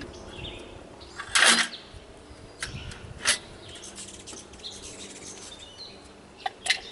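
Scattered metal clinks and a brief scrape about a second and a half in, as chrome motorcycle exhaust pipes and their mounting nuts are handled and fitted to the engine. Faint bird chirps between them.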